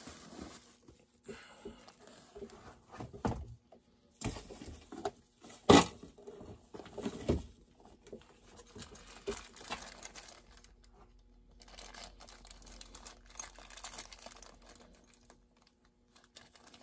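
Plastic parts bag and paper packaging crinkling and being torn open by hand, in scattered bursts of rustling. A sharp click or knock about six seconds in is the loudest sound, with smaller taps around three and seven seconds.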